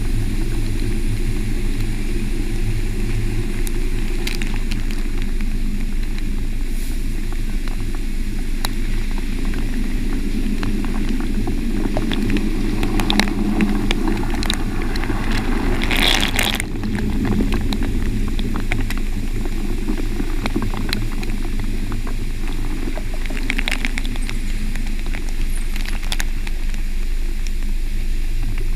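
Automatic car wash heard from inside the car: a steady machine drone with water spattering and the rotating brushes swishing over the bodywork, full of small crackles. A brief louder hiss comes about sixteen seconds in.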